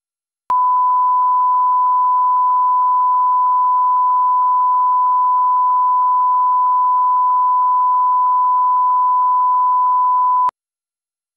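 Line-up test tone played with SMPTE colour bars: a single steady, pure electronic tone lasting about ten seconds, switching on with a click just after the start and cutting off suddenly near the end.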